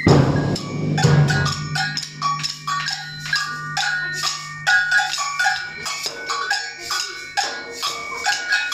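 Samba percussion band playing a groove: a loud ensemble hit opens it, a low drum note rings on until near the end, and bells play a repeating pitched pattern over quick rattling drum strokes.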